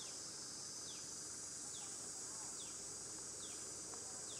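Steady high-pitched drone of insects, with a short falling whistle repeated about once a second.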